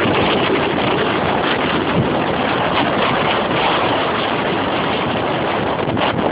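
Storm wind blowing hard across the microphone: a loud, steady rush of noise that swells slightly in gusts without letting up.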